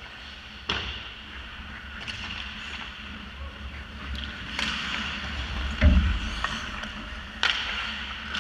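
Ice hockey play close by: skate blades scraping and carving the ice over a low rink rumble, with sharp clacks of sticks and puck a few times and a heavy thump just before six seconds in, the loudest sound.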